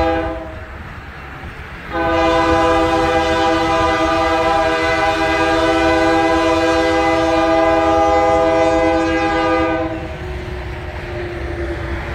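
Diesel locomotive air horn sounding a multi-note chord: the tail of one blast right at the start, then about two seconds later one long blast of about eight seconds that cuts off near the end, a horn sequence typical of a train approaching a road grade crossing.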